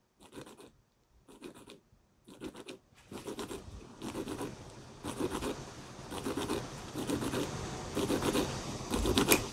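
Sandpaper scratching under a hand-held flat piece rubbed back and forth over a round sanding disc, polishing steel-wire eel hooks. A few soft strokes come first; after about three seconds the rubbing becomes steadier and louder, at about one stroke a second.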